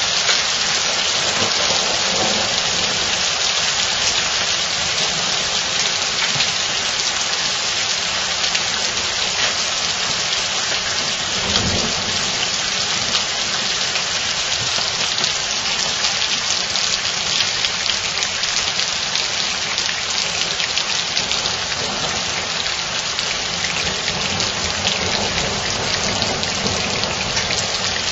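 Hailstorm: rain and hail falling steadily on leaves and the ground, a dense, even patter of many small impacts.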